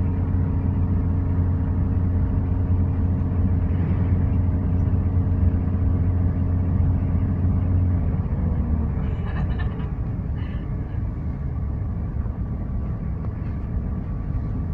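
Hitachi Class 800 train running on its underfloor diesel engines, heard from inside the saloon: a steady engine drone over the rumble of the train in motion. About eight seconds in, the engine note drops and the sound eases a little.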